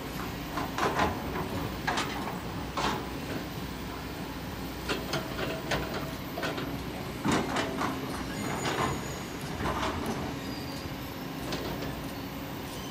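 Kobelco SK200 hydraulic excavator's diesel engine running steadily while its bucket digs into sand and rock at the foot of the cliff, with irregular sharp metallic clanks and scrapes.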